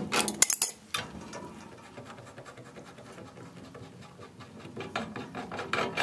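Steel wrenches clicking against the gas line fitting at a water heater's gas control valve, then a quiet, steady scraping of metal threads as the steel gas pipe is unscrewed from the valve, with a few more small metallic clicks near the end.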